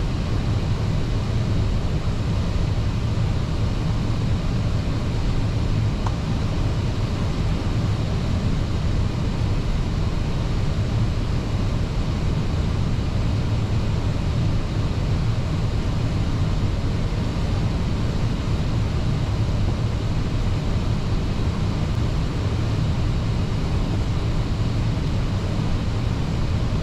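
Airbus A320 cockpit noise in flight: a steady, low rushing of airflow and engine drone, even throughout with no distinct events.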